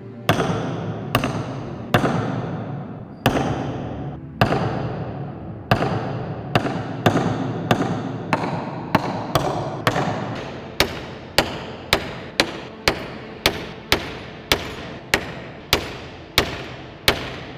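A hammer striking the head of an old iron nail again and again: slow, spaced blows at first, then quickening to a steady beat of about two a second. Each blow is followed by a long, echoing ring-out.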